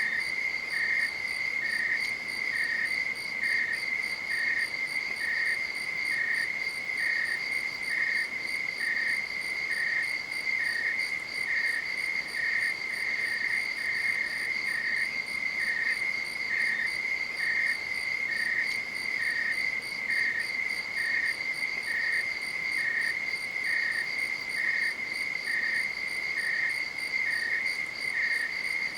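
Crickets calling: a steady high-pitched trill, with a second insect's short chirps repeating evenly, a little under twice a second.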